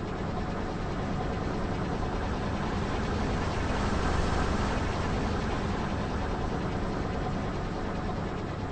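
Car engine running steadily at low speed, with a slight swell in level around the middle.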